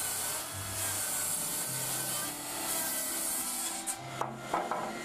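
Table saw ripping a long wooden board, with a continuous hiss of the blade cutting through the wood. A few sharp knocks come about four seconds in as the board is handled.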